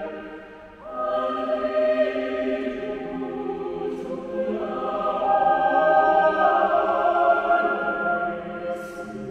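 Mixed choir singing sustained chords in a reverberant basilica. A chord dies away, the voices come back in about a second in, and they swell to a loud held chord around the middle before easing off near the end.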